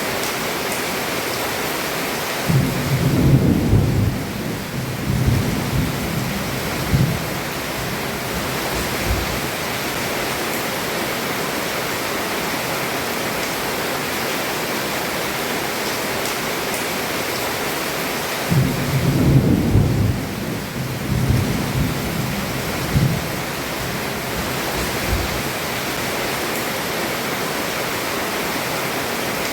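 Heavy rain falling steadily on a roof, heard from beneath it. Thunder rumbles twice, once starting a couple of seconds in and again a little past halfway, each roll lasting four or five seconds before dying back into the rain.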